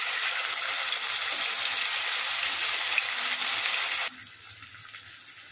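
Marinated chicken pieces frying in hot ghee and oil in an aluminium pot: a steady, loud sizzle that suddenly drops to a fainter, thinner sizzle about four seconds in.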